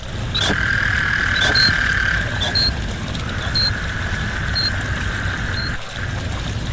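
Experimental noise music: a steady hissing drone with a low rumble underneath, punctuated by short clicks about once a second, each with a brief high beep. The drone drops out for a moment at the very start and again near the end.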